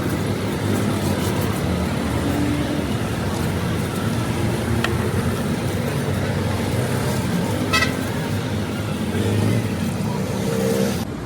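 Steady motor-vehicle engine and traffic noise, with a couple of brief sharp clicks.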